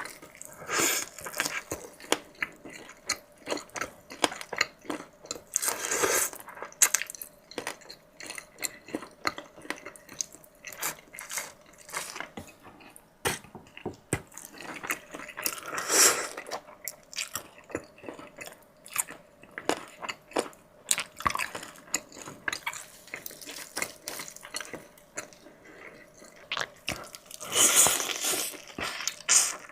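Close-miked eating of fried chicken and luosifen noodles: steady chewing and biting with many small mouth clicks, broken by four louder bursts of about a second each spread through.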